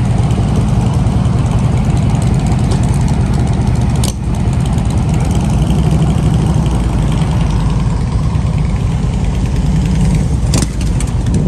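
A vehicle engine idling close by, loud and steady, with short breaks about four seconds in and near the end.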